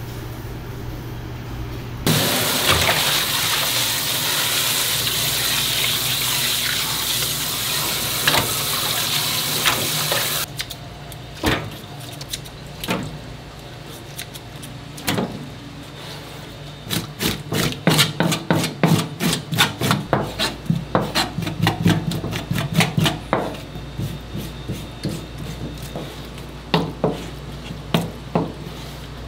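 Water running from a tap into a sink for about eight seconds, cutting off abruptly. Then comes a long run of sharp kitchen knocks and clicks, quickest, at about three a second, in the middle stretch.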